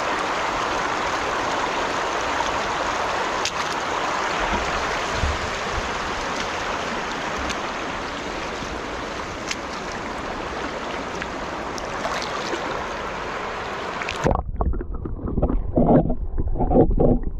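Steady rush of a shallow river flowing over stones. About fourteen seconds in it cuts abruptly to a muffled underwater sound, uneven low gurgling with the highs gone.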